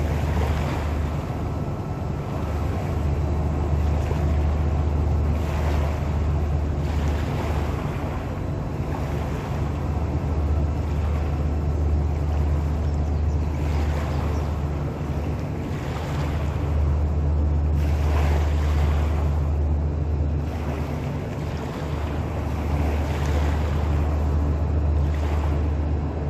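Steady low engine drone under wind buffeting the microphone, the wind coming and going in gusts.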